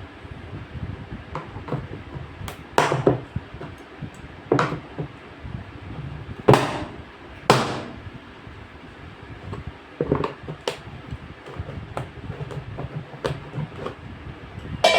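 Irregular knocks and clanks, a dozen or so hard hits spaced unevenly, the loudest a few seconds apart near the middle.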